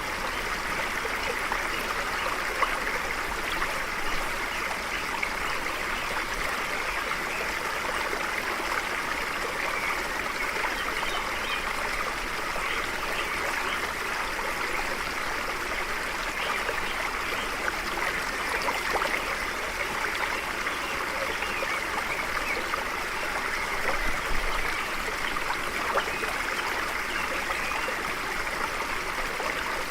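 Stream flowing, a steady babble and trickle of running water.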